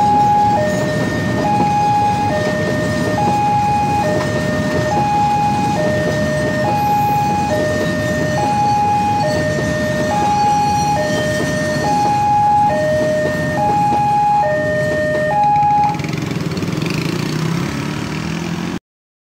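Level-crossing warning alarm sounding a two-tone high-low signal, about one cycle a second, over the rumble of a passing cement freight train. The alarm stops about three-quarters of the way through, a sign the train has cleared the crossing, and the sound cuts off abruptly near the end.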